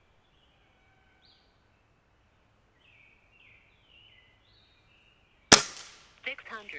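Air Arms TX200 MkIII .22 underlever spring-piston air rifle firing one shot, a single sharp, loud crack about five and a half seconds in.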